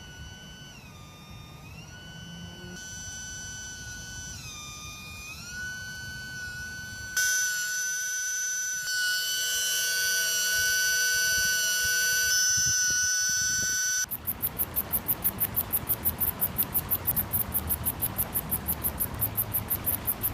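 A high whistling tone with overtones that dips briefly in pitch several times, then stops about 14 seconds in. After it, a cricket chirping in quick, even pulses, about six a second, over a low hum.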